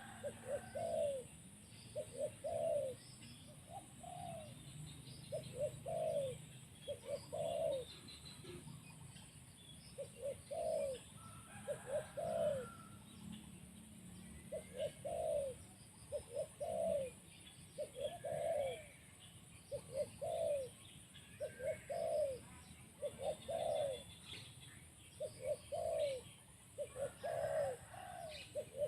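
Spotted dove cooing over and over, in short phrases of two or three notes every second or two, with faint chirps of other small birds behind.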